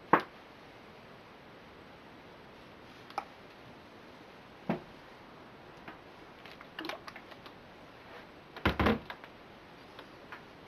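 Handling noises of a clothes iron pressed onto a shirt on a padded ironing board: a sharp knock just after the start, a few faint clicks, and a longer cluster of bumps and fabric rustle about nine seconds in as the cloth is shifted.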